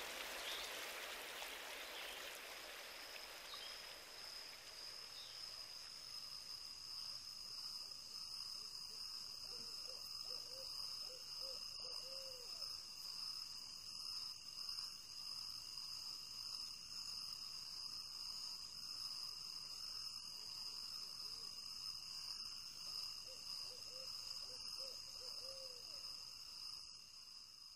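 Faint night ambience: insects trilling steadily at a high pitch, with two short runs of lower calls, about ten seconds in and again near the end.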